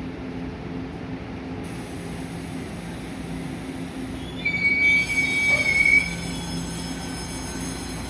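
Tze-Chiang limited express train pulling into a station, a steady low running hum, with a loud high-pitched metallic squeal from the wheels lasting about a second and a half around the middle as it slows.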